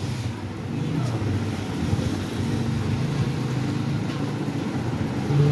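A motor vehicle engine running steadily at low revs.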